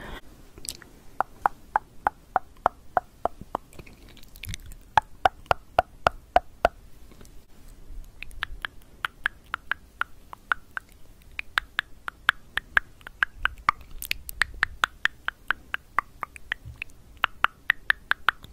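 Tongue clicking: quick runs of sharp clicks, about four a second, their pitch shifting up and down as the mouth changes shape, with short pauses between runs.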